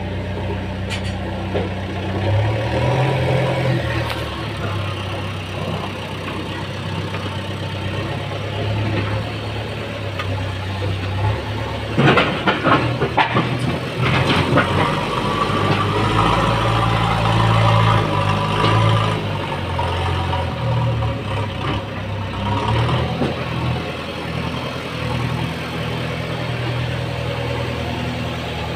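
Diesel engines of a JCB backhoe loader and a tractor running, the engine note shifting up and down as the loader works. A burst of clattering knocks comes about twelve seconds in.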